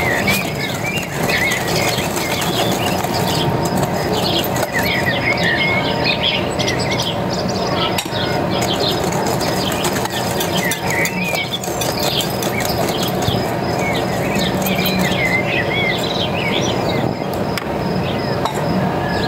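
Wire whisk beating cake batter in a glass bowl, a continuous rhythmic scraping, over steady birdsong with many quick chirps.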